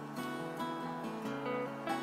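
Background music led by plucked acoustic guitar, with notes changing every fraction of a second.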